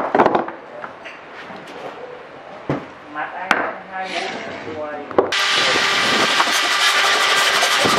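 Wood being handled: scattered knocks and clicks for about five seconds, then a power tool starts abruptly and runs steadily, cutting wood.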